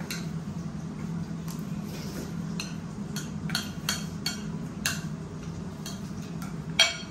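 Metal forks clinking and scraping against a plate and a bowl while people eat, a string of separate light clinks with one louder clink near the end. A steady low hum runs underneath.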